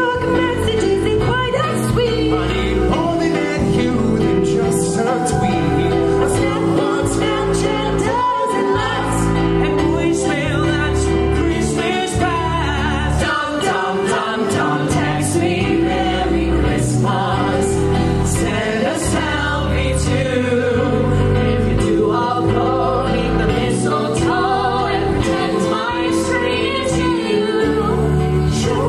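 A cappella vocal group of men and women singing a holiday song in harmony through microphones, over a held bass line and a steady beat.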